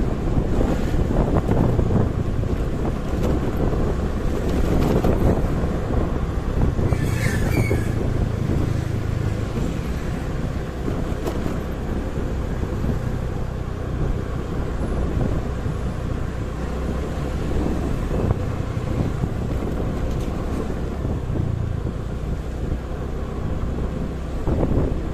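Wind buffeting the microphone over the steady low rumble of a motorcycle engine and road traffic during a ride, with a brief higher-pitched sound about seven seconds in.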